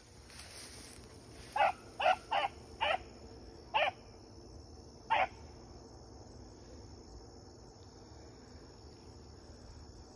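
Rabbit hound barking six times in short, separate barks over a few seconds while running a rabbit on its scent.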